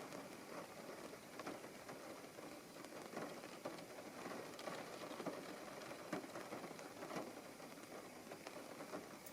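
Rain falling on a parked car with its engine switched off, heard from inside the cabin: a steady hiss of rain with many small drop taps.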